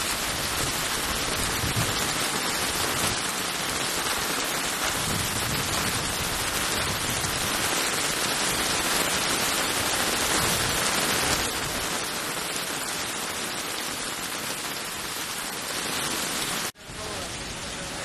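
Heavy rain pouring down onto a flooded street, a dense steady hiss of a cloudburst. Near the end it breaks off for an instant and then goes on somewhat quieter.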